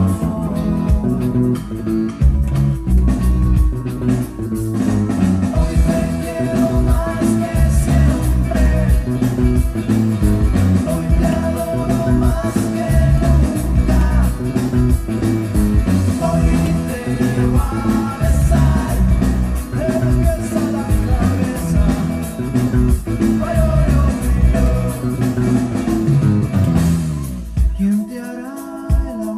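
Electric bass guitar played along with a rock song recording that has vocals, the bass line running steadily under the band. About two seconds before the end the low end drops out and the music thins.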